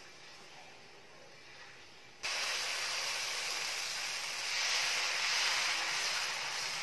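Dosa batter sizzling on a hot tawa as it is ladled on and spread in circles: a steady hiss that starts suddenly about two seconds in and swells a little midway. Before it, only faint sounds.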